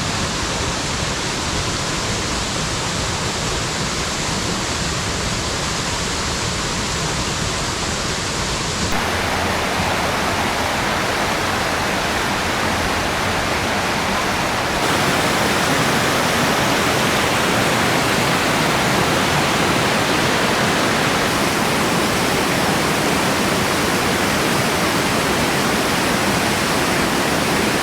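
Mountain stream rushing and splashing down cascades in a rocky gorge: a steady, loud roar of water. Its tone shifts abruptly about a third of the way through and again about halfway, as if from one cascade to another.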